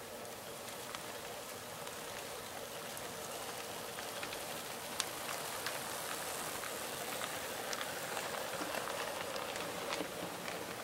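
HO scale model train rolling slowly along the track: a steady whirring hum from the Rivarossi 0-4-0's motor and gears, with scattered light clicks of the wheels over the rails. It grows slightly louder as the cars pass, with one sharper click about five seconds in.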